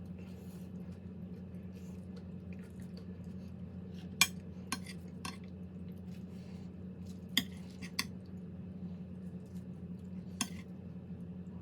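Cutlery clinking against a dish in a few sharp, separate clicks, about six in all, over a steady low hum.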